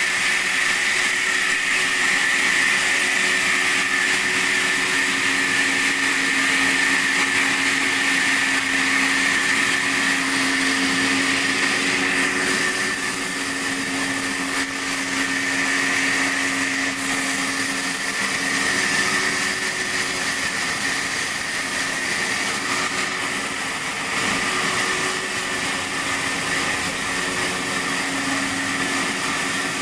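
Sawmill saw running steadily while sawing sheesham (Indian rosewood) timber: a constant motor hum under a high hiss, with no break.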